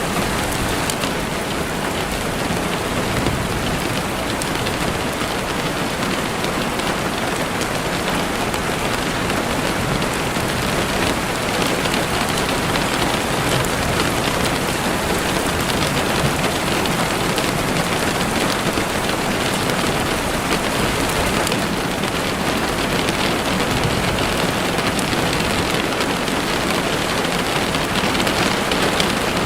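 Steady rain falling on foliage and the ground, with a campfire crackling underneath in faint, scattered ticks.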